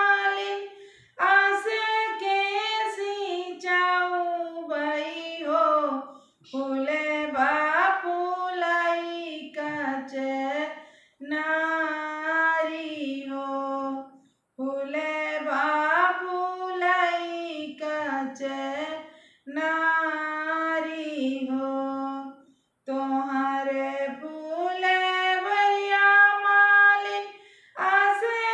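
A woman singing a Bagheli folk wedding song solo and unaccompanied, in phrases of a few seconds each with short pauses for breath between them.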